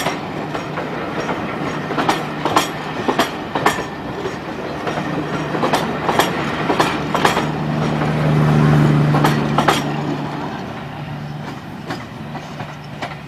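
Passenger coaches of a steam-hauled train rolling past close by, their wheels clicking irregularly over rail joints over a steady rumble. A low hum swells about two-thirds of the way through, then the sound fades as the last coach pulls away.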